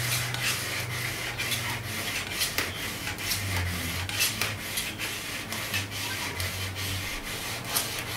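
A large kitchen knife sawing back and forth through the compressed pleats of a pleated blackout blind, a string of short rasping strokes about one or two a second.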